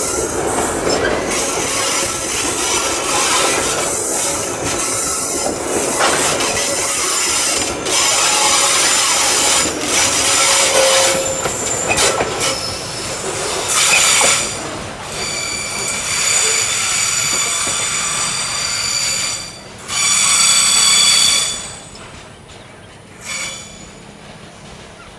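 Loaded coal hopper wagons of a long Babaranjang coal train rolling past on a curve, wheels clattering on the rails with bouts of high-pitched flange squeal, loudest about three-quarters of the way through. The noise drops away sharply near the end.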